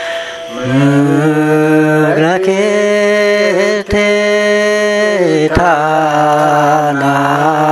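A man chanting a Karen poem in long, drawn-out notes that bend and slide between pitches, with brief pauses for breath; the voice comes in about half a second in after a quieter moment.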